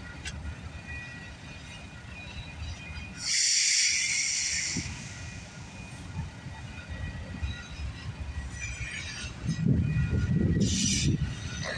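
CN freight train of auto rack cars rolling past, a steady low rumble of wheels on rail. There is a brief loud hiss about three seconds in, and the rumble swells louder near the end.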